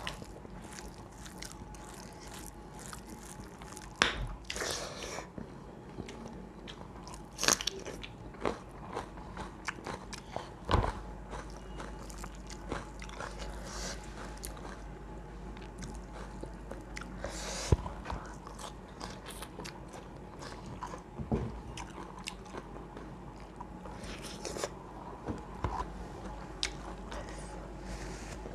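Close-up eating sounds: chewing and crunching of food, with a few sharper, louder crunches about 4, 7.5, 11 and 18 seconds in.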